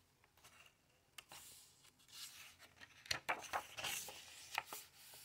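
A hand sliding over and turning a page of a hardcover picture book: soft paper rustling and swishing, with a couple of sharper crackles of the page about three and four and a half seconds in.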